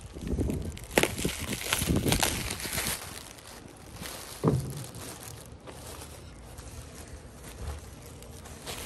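Plastic bag and bubble wrap crinkling and rustling as a windshield is unwrapped by hand. There is a sharp click about a second in and a dull thump about four and a half seconds in, and the handling gets quieter after about three seconds.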